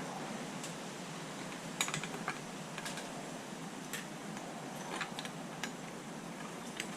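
Scattered light metallic clicks and clinks, a few seconds apart, over a steady background hiss: bolts and a bracket being handled and fitted loosely on the engine's water pump.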